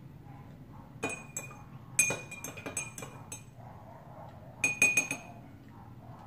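Metal spoon clinking against a drinking glass of juice, in short runs of ringing clinks: a couple about a second in, a longer run at about two seconds, and another run near five seconds.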